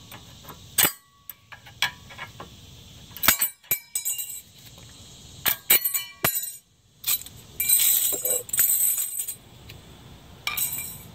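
Thin steel brake-pad hardware clips being pried off a rear disc brake caliper bracket with a metal tool: a series of sharp metallic clicks and clinks, some ringing briefly, with short bursts of scraping metal near the end.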